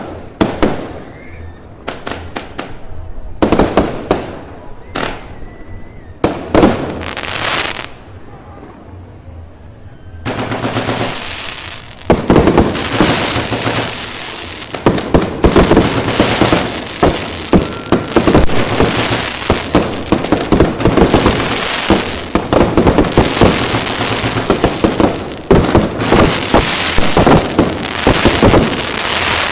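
Firecrackers going off: a few separate sharp bangs, then from about ten seconds in a long string of firecrackers crackling in rapid, continuous succession, with louder reports among them.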